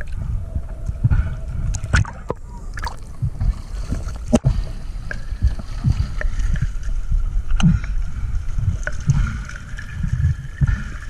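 Water sloshing and gurgling around a camera held at the waterline beside a boat's hull, in irregular low surges, with a few sharp knocks.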